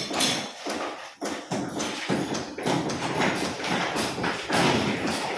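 Repeated hand-hammer blows, about two to three a second, in a quick irregular rhythm.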